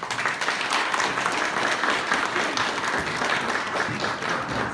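Small audience applauding with steady hand clapping.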